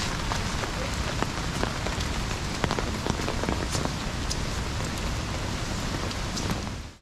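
Steady rain: an even hiss of falling water with many small drop ticks scattered through it. It dips away sharply at the very end.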